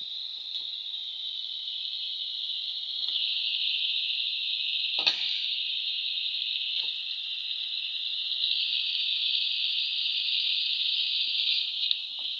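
Fish pieces frying in hot oil in a steel pan: a steady sizzling hiss, with one sharp tap about five seconds in and a few fainter knocks.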